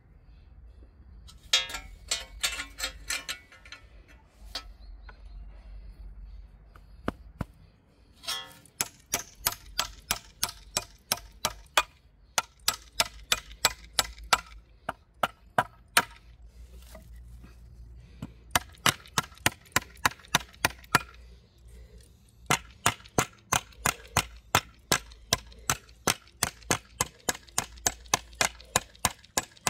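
Claw hammer striking the end of a wooden scythe handle fitted with a metal ring, in runs of quick sharp blows, about three a second, with short pauses between the runs.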